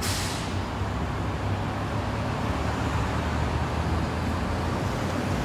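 Steady road traffic noise, a low rumble with a hiss over it, with a brief rush of higher hiss right at the start.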